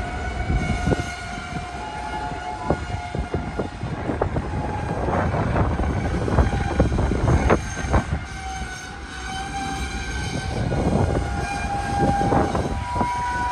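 Loaded gravel train's hopper cars rolling past with a steady low rumble and many irregular clanks and clicks from the wheels and couplers. Thin squealing tones come and go over it, shifting slightly in pitch.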